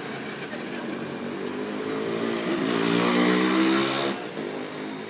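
A motorbike engine over street noise, rising in pitch and getting louder from about two seconds in, then dropping off sharply about four seconds in.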